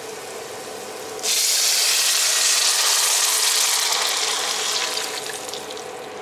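Water poured from a jug into a pot of hot chili-oil hotpot base. A loud, steady gush starts about a second in and fades over the last couple of seconds, with a lower steady hiss before the pour begins.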